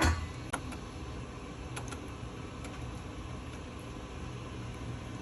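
Steady low mechanical hum, with a sharp knock at the start and a few light clicks over the next couple of seconds.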